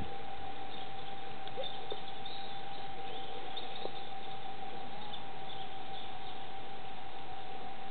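Steady machine whine at one constant pitch over an even hiss, most likely the Voith Schneider tug's drive running, with faint high chirps scattered through.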